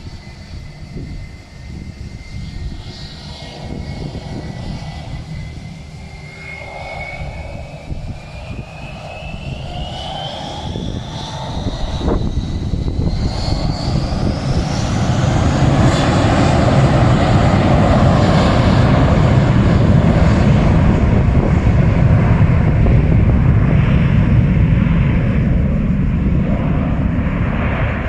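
Airliner passing low overhead. A thin engine whine climbs steadily in pitch while a deep engine roar swells, growing loud about halfway through and staying loud to the end.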